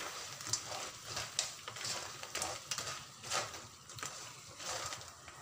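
Wooden spatula stirring crab pieces in thick red sauce in a non-stick frying pan: a run of irregular scraping, clattering strokes, two or three a second.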